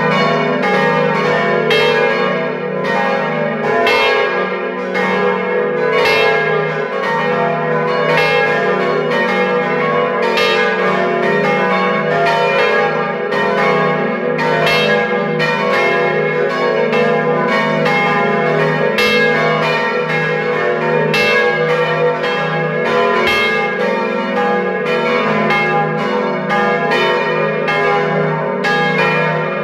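The swinging church bells of the Dom tower (Agnes minor, Kruisklok, Benignus, Adrianus and Jezus Maria Johannes) pealing together, heard close up inside the bell chamber. Their clapper strikes overlap in an irregular stream over a continuous ringing hum.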